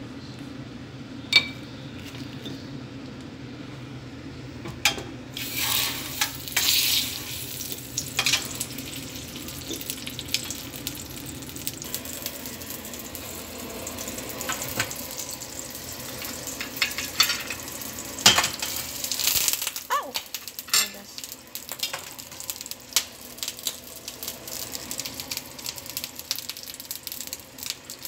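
Crabs and shrimp frying and sizzling in a hot stainless steel pan, with scattered clinks and knocks of utensils and the pan. The sizzle swells louder for a couple of seconds about five seconds in and again just before the twentieth second, as more food goes in.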